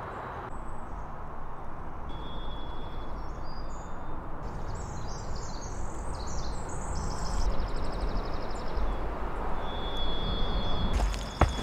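Songbirds chirping, with a couple of held high whistles, over a steady rumble of distant highway traffic. A few sharp clicks come near the end.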